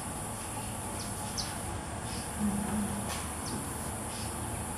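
Steady high insect buzz, with a few faint, short high bird notes scattered through it.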